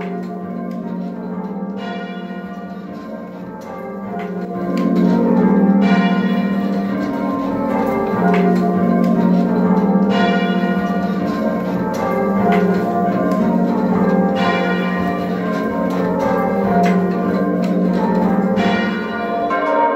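A ring of church bells rung full-circle on ropes, fully muffled so the strikes sound dull, with the tenor left open at backstroke so it rings out clearly every other pull. This is the half-open muffled ringing used for mourning. The bells grow louder about five seconds in.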